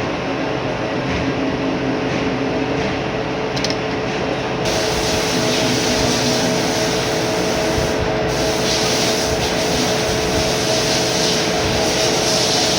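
Lathe running and turning a Delrin part: a steady motor and spindle whine under a cutting hiss, which gets louder and brighter about a third of the way through as the cut changes.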